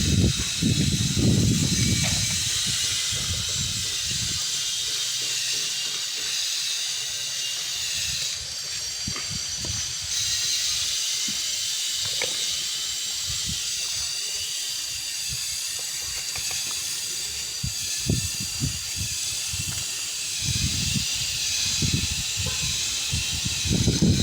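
Strong wind buffeting the microphone in gusts near the start and again near the end, over a steady high hiss.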